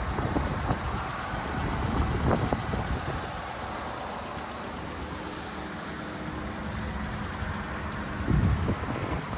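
A car engine idling steadily, with louder gusts of wind rumbling on the microphone about two seconds in and again near the end.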